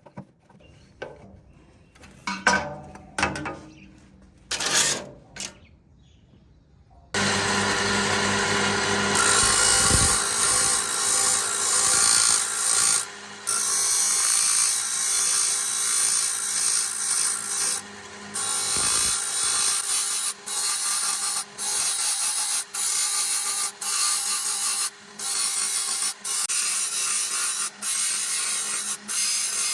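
A few knocks and clicks, then about 7 seconds in an electric power tool starts and runs loudly under load. In the last third it is interrupted by short breaks roughly once a second, as if lifted off the work and set back on.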